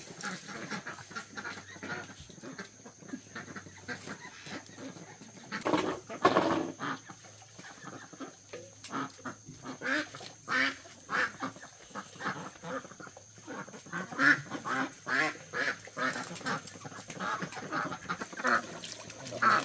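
Farmyard poultry calling: a run of short, irregular calls, loudest about six seconds in and again around fourteen seconds.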